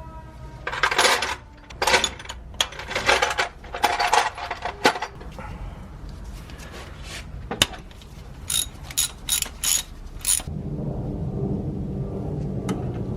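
Hand work under a car's hood: rattling and scraping bursts, then a quick run of sharp metallic clicks, like a ratchet or parts being handled. Near the end a steady low hum sets in.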